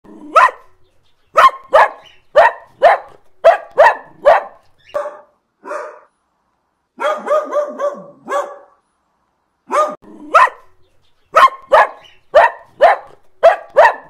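Dogs barking: a run of single sharp barks about two a second, a quicker string of shorter, yappier barks around the middle, then more barks near the end.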